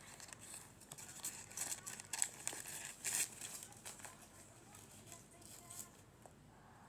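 Crinkling and crackling of food packaging being handled, a dense run of small sharp crackles that thins out after about three and a half seconds.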